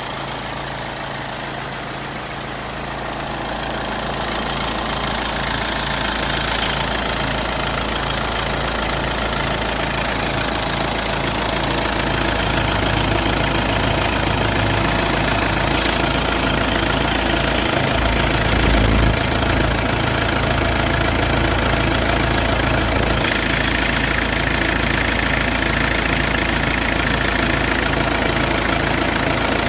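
Mercedes-Benz 220D's four-cylinder diesel engine idling steadily.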